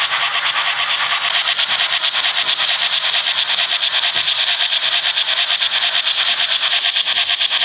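Model narrow-gauge steam locomotive chuffing rapidly and evenly, a quick steady beat of hissing exhaust strokes, several a second, as it runs along the track.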